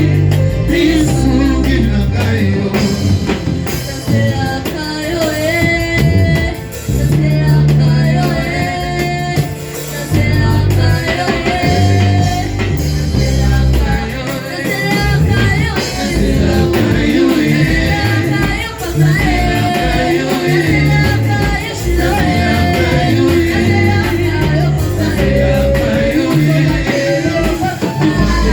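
Live worship music: singing over a band with bass and drums, playing without a break.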